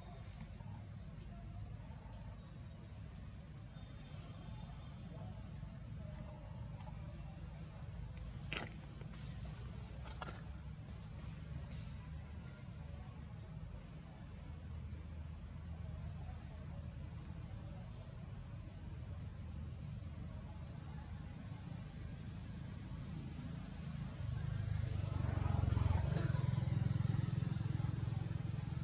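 Outdoor ambience: a steady, high-pitched insect drone over a constant low rumble, with two short clicks about a third of the way in. The low rumble swells louder over the last few seconds.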